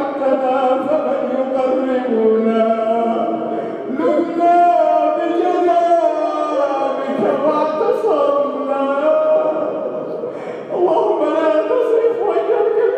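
A man chanting an Arabic supplication (du'a) in a melodic, drawn-out voice, with brief pauses about four and eleven seconds in.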